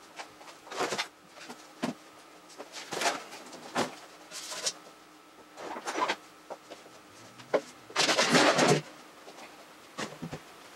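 Irregular knocks and clicks of objects being handled, with a longer scraping rustle about eight seconds in.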